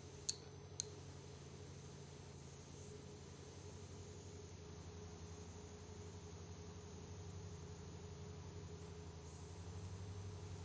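Piezo disc driven by an ultrasonic driver, giving a thin, high-pitched whine that cuts out briefly just after the start, then glides down in pitch, holds steady for several seconds, and rises again near the end as the drive frequency is tuned.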